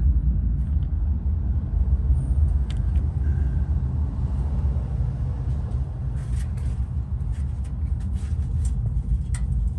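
Steady low rumble with a few faint, scattered clicks as a ratchet and 24 mm socket are worked onto the transmission fill plug under the car.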